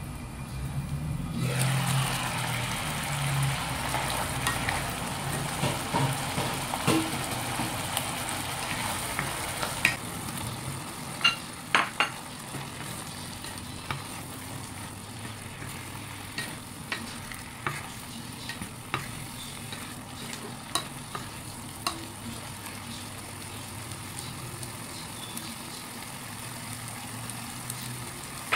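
Broccoli and tuna in cream sauce sizzling in a nonstick pan while a wooden spatula stirs them, knocking and scraping against the pan in sharp clicks, loudest about ten to twelve seconds in. A low steady hum runs underneath.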